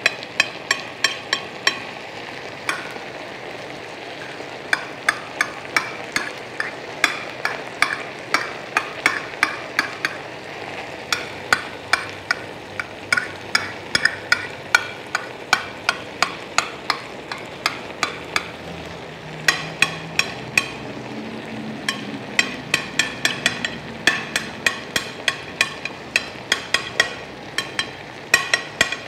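A small spoon clicking and tapping against a plate again and again, about two or three sharp clicks a second with short pauses, as cooked rice is pressed and squared into a block.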